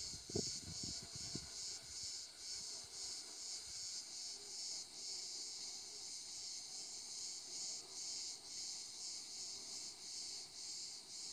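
A high-pitched insect chorus chirring steadily, pulsing in an even rhythm several times a second. There are a few soft low noises in the first second and a half.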